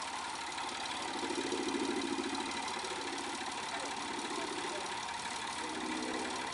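Small 2 ft gauge diesel locomotive's engine idling, its note swelling twice, about a second in and again near the end.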